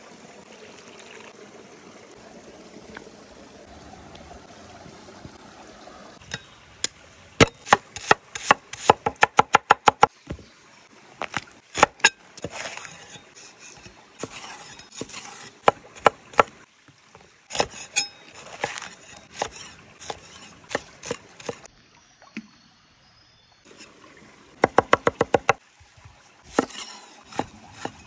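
Cleaver-style kitchen knife chopping on a thick wooden board, sharp knocks starting about six seconds in. They come in quick runs of about five strokes a second, with slower single cuts between. Before the chopping there is a steady, gentle rush of running water.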